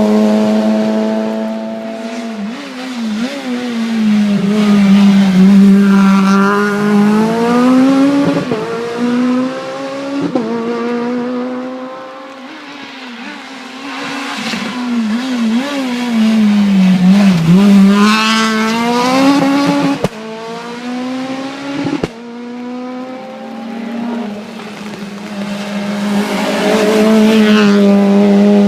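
Rally cars driving by one after another on a stage road, engines revving up and falling back through gear changes as each car approaches and passes. The sound breaks off sharply twice in the second half.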